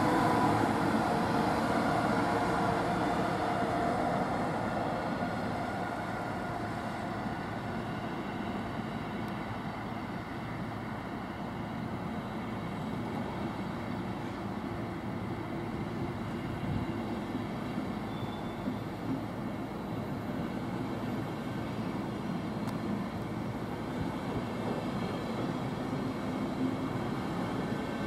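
Intercity train hauled by a DB electric locomotive running past: the locomotive's whine fades in the first seconds, then a steady rumble of the coaches rolling over the rails.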